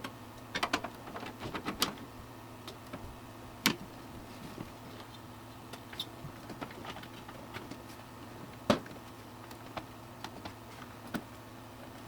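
Sharp clicks and knocks of a graphics card being unfastened and pulled out of a desktop PC case: a quick cluster in the first two seconds, then single knocks, the loudest about three-quarters of the way through.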